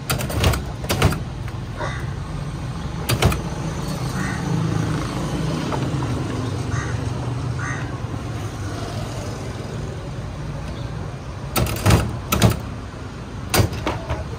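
Street traffic with a steady low rumble, broken by sharp knocks and clatters: a few right at the start, one about three seconds in, and a burst of them near the end.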